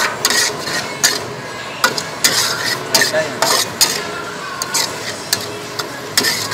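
Metal spatula scraping and clanking against a steel wok in irregular strokes as beef with lemongrass and chillies is stir-fried, the food sizzling underneath.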